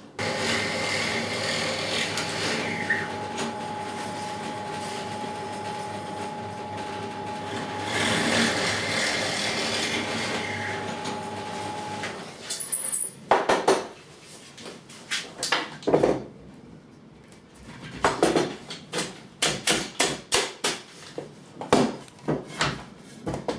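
Bench drill press running and boring through timber, a steady motor sound with a held whine, for about twelve seconds before it is switched off. Then a run of sharp wooden knocks and taps, several in quick succession near the end.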